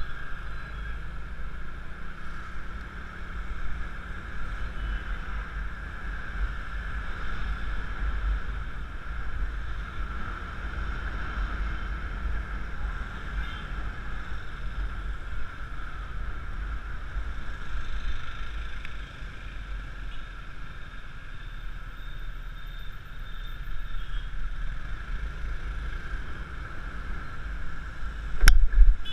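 Riding a Yamaha Mio Classico scooter through city traffic: wind buffets the mounted camera's microphone as a low rumble, over the steady running of the small engine. A single sharp knock comes near the end.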